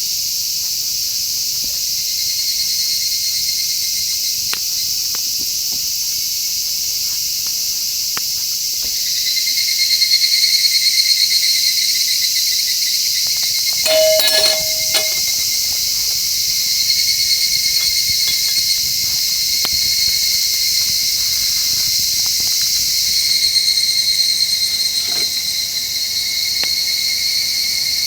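Dense chorus of insects, crickets among them, chirping in a steady high-pitched trill. A second, lower trill joins about a third of the way in. A short clink-like ring with a few knocks comes about halfway through.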